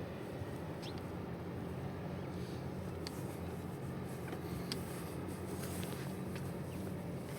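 Steady city street ambience heard while riding a bicycle: a low, even hum of traffic and rolling noise, with a few faint, short high ticks scattered through.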